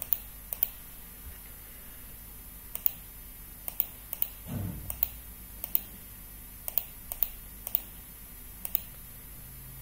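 Computer mouse clicking as lines are drawn in pattern-making software: sharp, short clicks, often in quick pairs, roughly once a second.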